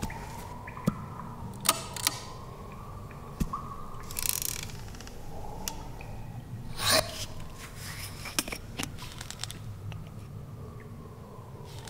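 Foley of small objects being handled in a bathroom cabinet as toothpaste tubes are taken off the shelf: scattered light clicks and knocks, with short scraping rustles about four seconds in and again near seven seconds. A faint low hum runs underneath.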